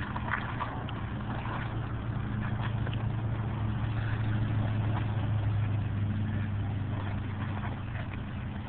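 Toyota SR5 4x4's engine running under load, getting louder from about four to six seconds in and easing near the end, with scattered clicks and knocks over it.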